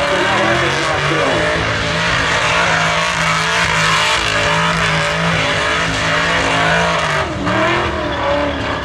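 Holden Commodore ute doing a burnout: the engine is held high and steady while the rear tyres spin and screech. The revs dip and waver briefly about seven seconds in.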